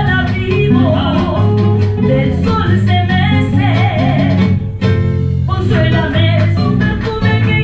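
Marinera music: a singer over guitar with a steady beat, with a brief break about five seconds in.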